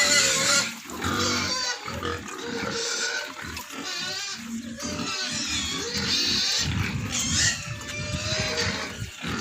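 Several pigs squealing, high-pitched calls with wavering pitch overlapping one after another.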